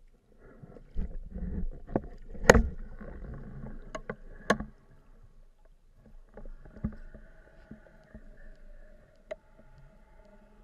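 Underwater sound picked up by a camera in its waterproof housing: muffled rumbling water noise with a few sharp knocks, the loudest about two and a half seconds in. From about six and a half seconds in a faint steady hum with several held tones joins, with the odd click.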